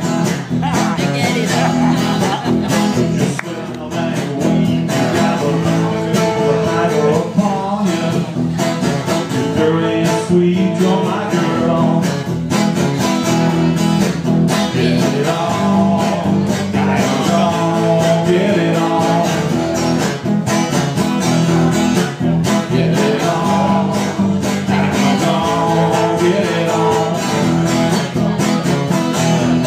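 Live music: a man singing into a microphone while strumming an electric guitar, with steady rhythm throughout.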